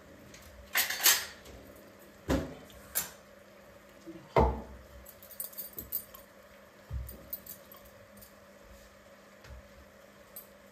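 Steel kitchen utensils being handled on a countertop: several separate knocks and clinks of bowls, spoons and pans, the loudest about four and a half seconds in, with lighter ticks between them.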